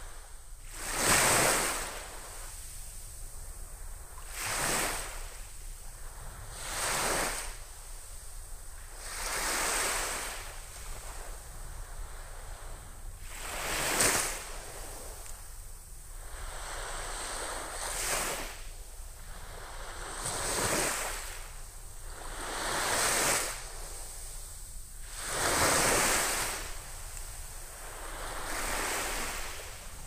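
Small, gentle waves washing up onto a sandy beach: a soft hiss of surf that swells and fades about every two to three seconds.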